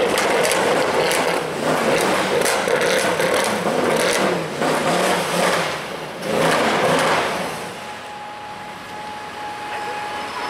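Mercedes-AMG C63 V8 engine accelerating hard and loud, in several surges with short dips between them, then falling away to a lower steady level after about seven and a half seconds.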